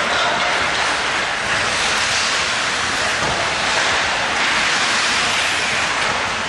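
Steady rushing, scraping hiss of ice hockey skates cutting across the rink ice during play.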